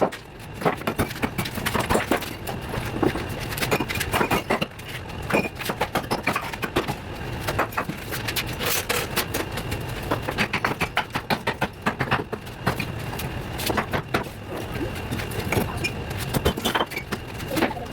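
Rapid, irregular sharp knocks and clicks, several a second, over a steady low hum.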